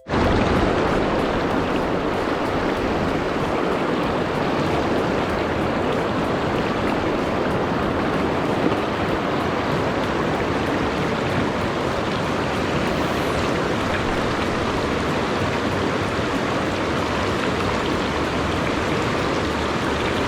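River current rushing steadily, an even wash of water noise.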